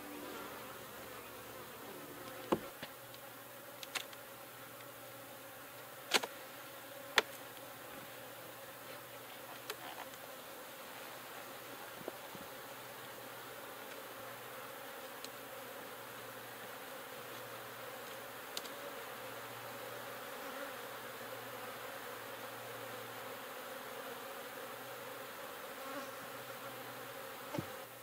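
Honeybees buzzing steadily around an opened hive. A few sharp wooden knocks in the first ten seconds or so come from the hive tool and boxes as the hive is taken apart.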